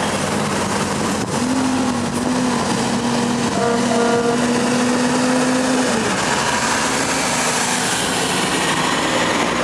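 Heavy trucks in a slow convoy driving past, diesel engines and tyres running. About a second and a half in, a truck air horn gives three short toots, then a long blast of about two seconds that drops in pitch as it ends.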